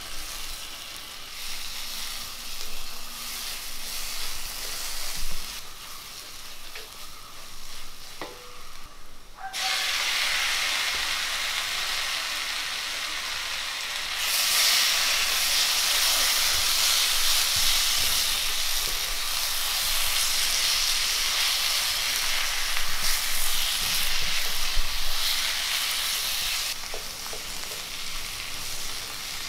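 Onion-and-spice masala sizzling in hot oil in a cast-iron kadai, stirred and scraped with a wooden spatula. About halfway through, as chopped tomatoes go into the pan, the sizzle turns louder and brighter.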